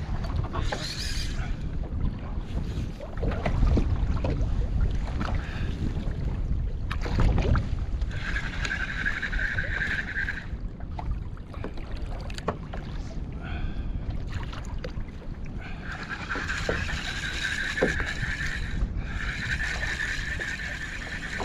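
Wind buffeting the microphone and water moving around a sea kayak. Twice a steady whirring comes in, first for about two seconds and later for about five seconds with a short break: a fishing reel being wound in as a soft plastic lure is retrieved.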